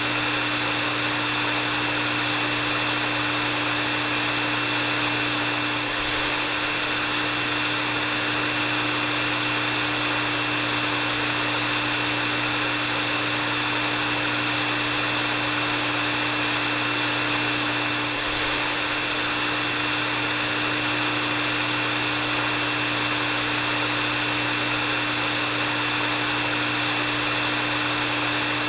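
Hair dryer running steadily: an even rushing hiss of air with a constant motor hum and a steady high whine.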